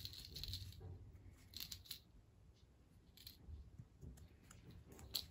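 Faint rustling as a fluffy plush cat toy is jiggled over a kitten on a wooden floor, followed by a few short soft scuffs and ticks about a second apart.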